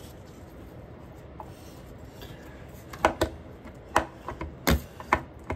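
Slime squelching and popping as it is squeezed and pulled, making fart-like noises: a quiet stretch, then about seven sharp wet pops in the last two and a half seconds.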